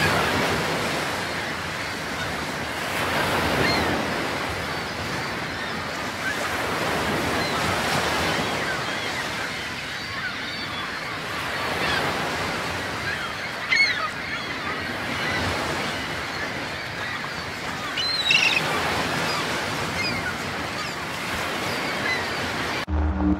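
Ocean surf breaking on a shore: a steady rush of water that swells and falls every few seconds. Short bird calls cut through a couple of times in the second half, and music starts at the very end.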